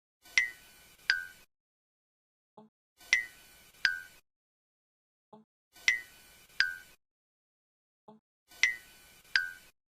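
Cartoon eye-blink sound effect, repeating four times: each time a faint low blip, then two quick clicks with a short ringing ping, the first higher than the second and under a second apart.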